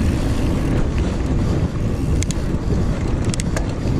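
Wind buffeting the microphone while a mountain bike rolls over hard-packed dirt, giving a steady low rumble. A few light clicks come about two seconds in and again near the end.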